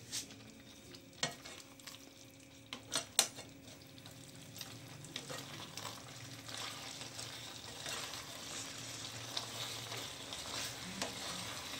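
Mixed vegetables sizzling in a nonstick pan while a spatula stirs them through freshly added cornflour slurry. There are a few sharp clicks of the spatula on the pan in the first three seconds, and the frying hiss builds from about four seconds in.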